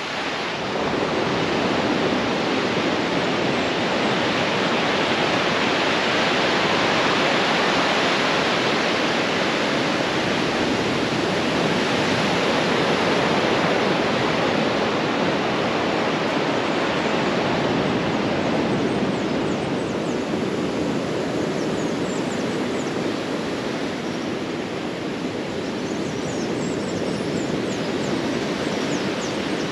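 Surf breaking on a sandy beach: a steady wash of wave noise that slowly swells and eases.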